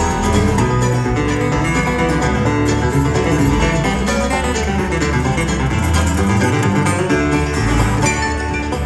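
Bluegrass string band playing live, with acoustic guitar and upright bass among the instruments; steady, continuous music.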